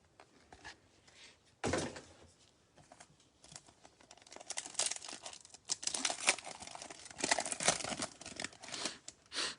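Trading-card pack wrappers crinkling and tearing as packs are handled and torn open. There is a sharp crackle about two seconds in, then dense crinkling and tearing through the second half.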